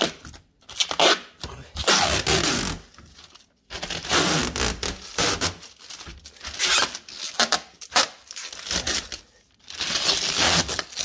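Protective plastic film being peeled off the stainless steel front panel of a dishwasher, ripping away in a series of pulls with short pauses between; really loud.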